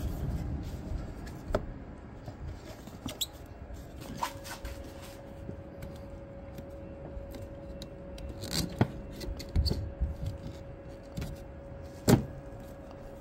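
Scattered clicks and knocks of the plastic air intake duct and hoses being handled and fitted back in place in the engine bay, the loudest a sharp knock near the end. A faint steady hum comes in about four seconds in.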